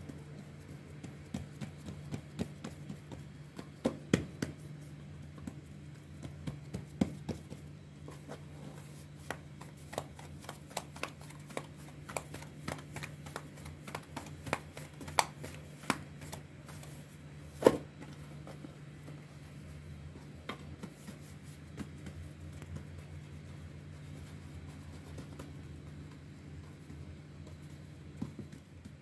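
Fingertips pressing and dimpling flatbread dough on a floured stainless-steel tray: irregular soft taps and clicks against the metal, and one louder knock a little past halfway as the stretched dough is handled and laid back down. A steady low hum underneath.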